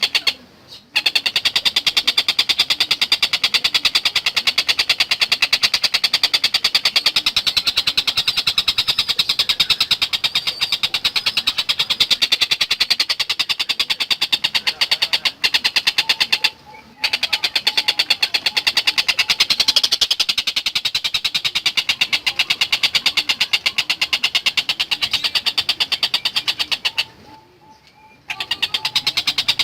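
Tengkek buto bird's rapid rattling chatter: a fast, high run of sharp notes kept up almost without a break, pausing briefly about half a second in, near the middle and again near the end.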